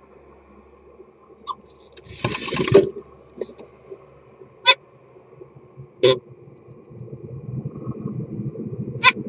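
European starling inside a wooden nest box: a loud flutter of wings as it drops in, a few sharp single clicks, then from about seven seconds in a low, rapid rattling warble as the male begins his courtship song.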